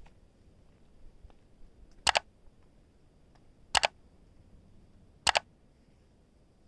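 Camera shutter clicks, three times about a second and a half apart, each a quick double click like a single-lens reflex shutter.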